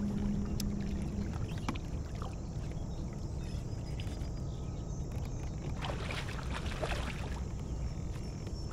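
Kayak on a river: steady low rumble of water and wind on the microphone, with a low hum that stops about a second in and scattered light clicks and knocks, most of them about six to seven seconds in.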